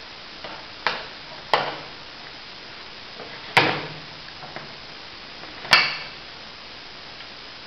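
A baby's metal spoon and plastic cup knocking against a plastic high-chair tray: four sharp knocks spread out irregularly, the last one the loudest.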